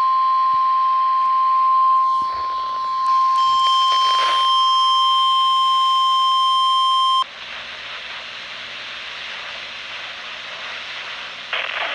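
NOAA Weather Radio 1050 Hz warning alarm tone over a radio receiver: one steady, loud tone that cuts off suddenly about seven seconds in. Radio hiss follows and grows louder near the end.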